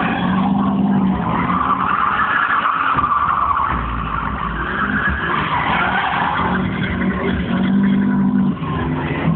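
Drift car engine held at high revs with tyres screeching through a sustained sideways slide. The engine note is strongest near the start and again near the end.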